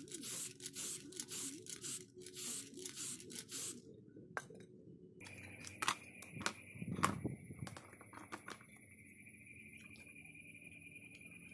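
An aerosol spray-paint can hissing in a run of short bursts over the first four seconds as a plastic phone frame is coated. After that a steady high-pitched whine, with a few sharp clicks and knocks of the painted plastic phone parts being handled.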